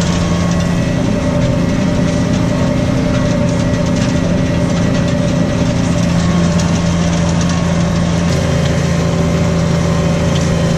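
New Holland T6.155 tractor engine running steadily under load while pulling a plough, with a slight change in pitch midway.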